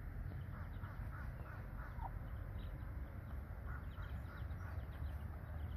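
Young chicks peeping in short, repeated chirps, with a steady low rumble underneath.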